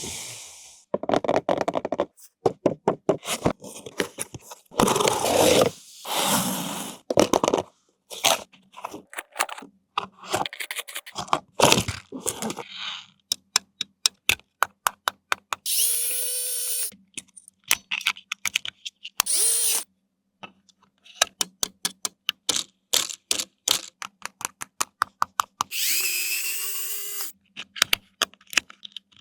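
Small electric motor and plastic gearbox of a remote-control toy vehicle whirring in short bursts of steady pitch, between many rapid clicks and clacks of hard plastic parts being handled.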